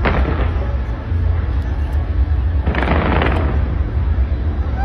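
Fireworks going off in a continuous barrage over a steady deep rumble, with a sharp bang and crackle at the start and a longer burst of crackling about three seconds in.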